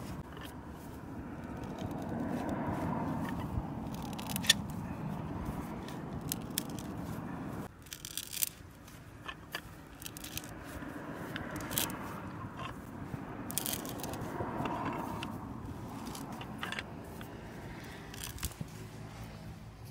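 Hand auger drill bit turned by hand, boring into the end grain of a log: its cutting edge scrapes and crackles as it pares out wood shavings, with sharp cracks scattered through the steady grinding.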